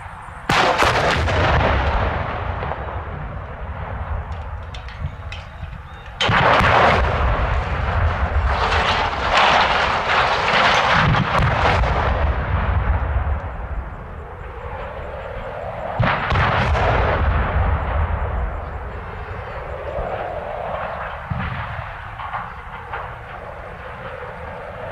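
Explosive charges going off to fell 400-foot steel radio towers: sharp blasts about half a second in, about six seconds in and about sixteen seconds in, each followed by a long rolling rumble that dies away slowly.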